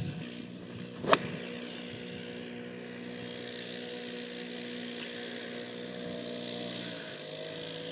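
A golf club strikes the ball with one sharp click about a second in. A steady engine drone follows, holding a few fixed pitches and shifting slightly in pitch near the end.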